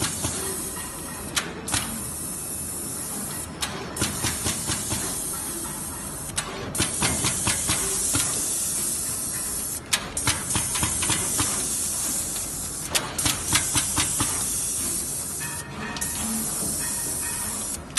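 NeoDen7 pick-and-place machine running in production: a steady air hiss from its pneumatic vacuum system, cutting out briefly every few seconds, with quick runs of sharp clicks as the multi-nozzle head picks and places components.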